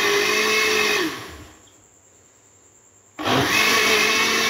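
Dawlance electric blender motor running as it churns cream and water into butter. About a second in it is switched off and winds down to near silence, then starts again abruptly about three seconds in and runs steadily.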